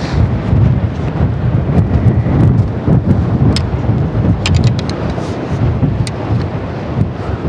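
Loud, steady low rumble of wind and surf, with a few sharp clicks in the second half.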